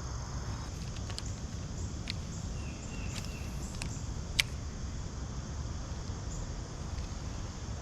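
Steady low outdoor rumble with a few faint clicks, and one sharp click about four and a half seconds in.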